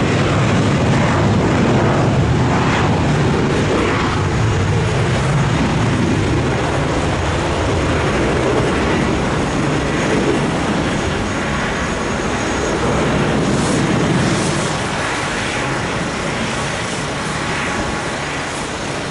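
Airliner engines running loud, a dense rumble that eases a little after about 14 seconds.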